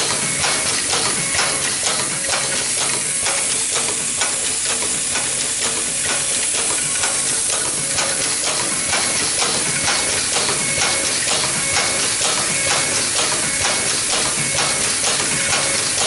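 YFM-2NCA automatic nylon zipper slider mounting machine running on test: a steady hiss under a fast, continuous clatter of mechanical clicks, several a second, with short high tones repeating through it.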